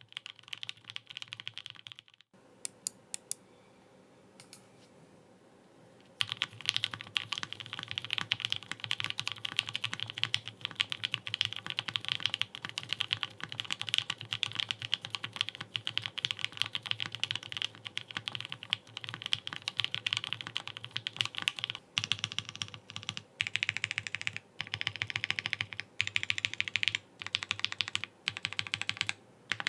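Typing on a plateless, gasket-mounted GOK 7V mechanical keyboard with L&F ThicThock Marshmallow tactile switches and GMK keycaps. After a sudden break about two seconds in and a few scattered keystrokes, fast continuous typing starts about six seconds in. In the last third it breaks into short bursts with brief pauses.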